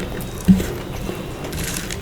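Close-up wet chewing and mouth sounds of someone eating, with a soft thump about half a second in.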